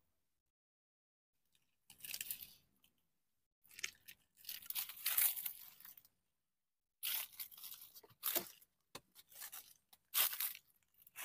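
Dry dead leaves crunching and rustling, in several separate bursts with silent gaps between them.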